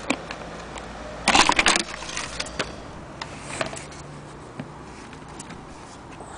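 Clicks and a short, loud clatter of metal parts about a second and a half in, from an antique Corona typewriter's mechanism being handled, with scattered single clicks after it.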